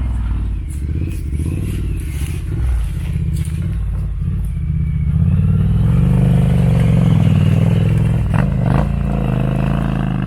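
Dual-sport motorcycle engine running and being revved as a rider takes off on a dirt trail. It gets louder about halfway through, with a quick blip of the throttle near the end, and light clatter over it.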